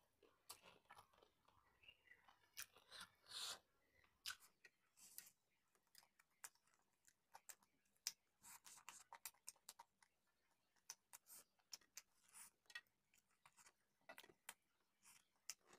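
Faint close-up chewing of roast chicken eaten by hand: small wet mouth clicks, smacks and crunches scattered irregularly, with a few clusters.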